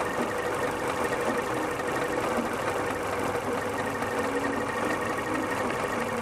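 Car engine idling steadily with a vacuum leak at a fuel injector seal, which leans out the air-fuel mixture.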